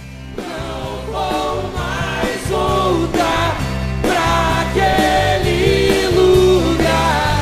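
Rock song fading in after a short gap, with bass and drums and a melodic lead line on top.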